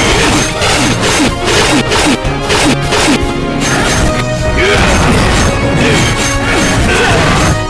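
Edited fight sound effects: a rapid run of punches, smashes and crashes with whooshes, laid over dramatic background music.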